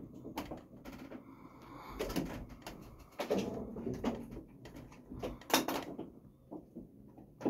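Wooden running gear of a windmill turning: the big cogged brake wheel and its gearing creaking and knocking in an uneven run of wooden clacks over a low rumble.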